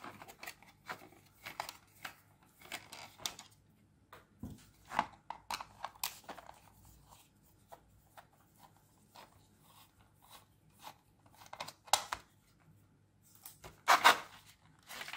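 Small screwdriver levering at a plastic carbon monoxide alarm casing: irregular clicks, scrapes and creaks of plastic, with a few sharper snaps as the case starts to come apart, the loudest near the end.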